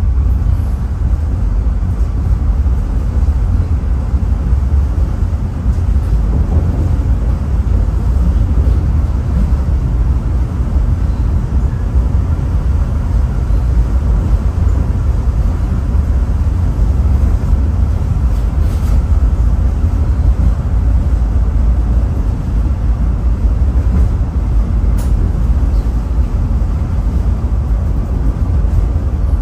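Caltrain passenger train running along the line: a steady low rumble of wheels and running gear, with a few faint clicks.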